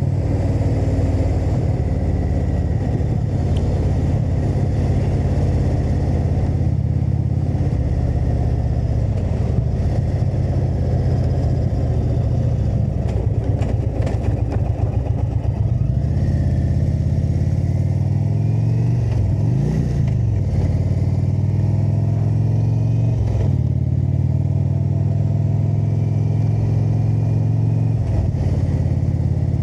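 Indian motorcycle's V-twin engine running under way at steady road speed. About two-thirds of the way through, the engine note drops and then climbs again as the bike slows and picks up speed, with a shift in pitch shortly after.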